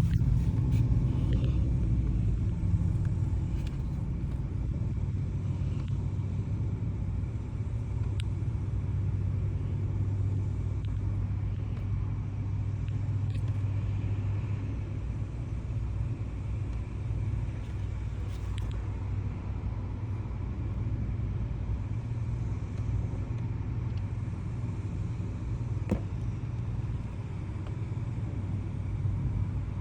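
A vehicle engine running with a steady low rumble, a few faint clicks over it.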